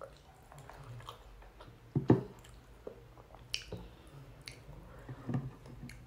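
Close mouth sounds of someone eating rice and curry by hand: chewing and wet smacking, with a few sharp clicks, the loudest about two seconds in and another near the end.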